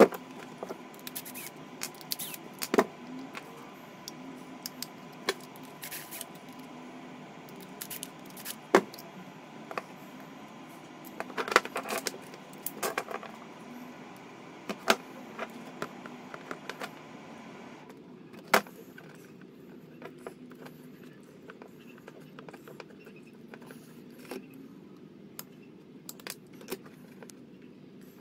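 Scattered metallic clicks and clinks of hand tools and plug parts being handled while a power cord is rewired with an L6-30P plug.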